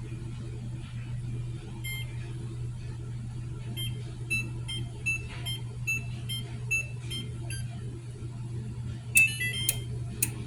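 Electronic beeps from a kitchen appliance's control panel: a single beep, then a run of about ten short high beeps at two or three a second as buttons are pressed, and near the end a quick chime of stepped tones. A steady low hum runs underneath.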